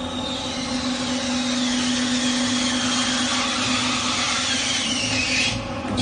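A 1000-litre planetary concrete mixer running empty, its drive humming steadily as the mixing arms turn in the pan. A high wavering squeal rides over it, drifts a little lower and cuts off shortly before the end.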